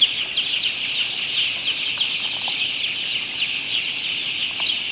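Dense chorus of peeping from a large flock of six-day-old broiler chicks: many short, high, falling peeps overlapping into a steady din.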